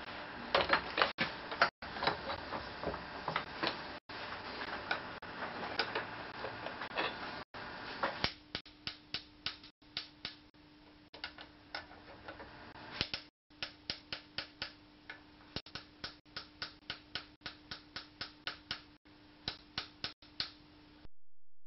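Light hammer blows on steel, riveting a clip onto a flat steel strap laid on a round steel stake held in a vice. Quick sharp taps, two to four a second, in several short runs.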